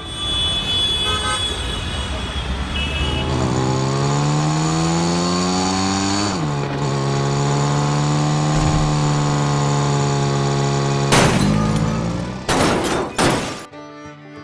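A vehicle engine revving up with a steadily rising pitch, then dropping suddenly about six seconds in and running at a steady pitch, over background music. A few sharp loud bangs or clatters come near the end.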